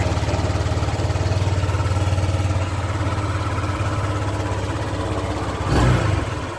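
Honda Click 150 scooter's single-cylinder engine idling steadily after a valve repair that cured its loss of compression, the idle still set a little high. Near the end there is a brief louder burst.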